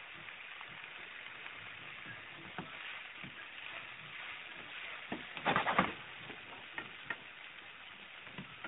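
Diced onions sizzling gently in oil in a frying pan as they sweat until glassy, with small crackles throughout. About five and a half seconds in, a spatula stirs and scrapes through them in a brief clatter, the loudest part.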